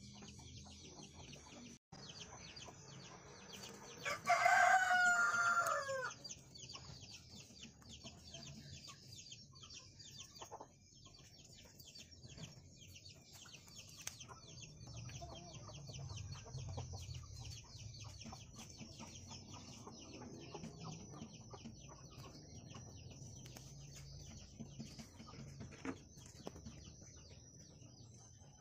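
A rooster crows once, about four seconds in: one loud call about two seconds long that falls in pitch at the end, over a steady high buzzing background.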